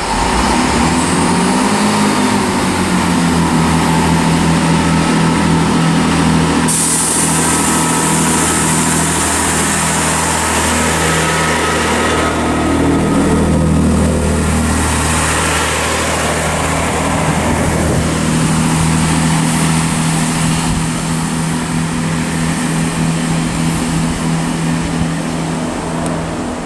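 Class 165 diesel multiple unit pulling out of a station, its underfloor diesel engines running under power. The engine note rises over the first couple of seconds, then holds steady and loud.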